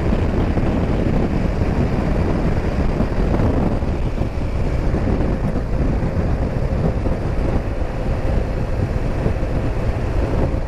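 Wind rushing over the microphone and the steady run of a BMW R 1200 GS motorcycle's boxer-twin engine while riding along an open road, with a faint steady hum through the second half.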